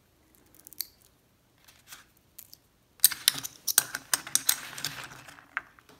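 Small metal screws and brackets being handled on kraft paper: a few scattered light clicks, then about three seconds in a dense run of clicking and rustling as the parts are picked up and set down.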